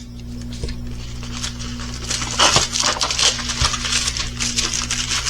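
Rustling of a diamond painting kit's packaging being handled, louder from about two seconds in, over a steady low hum.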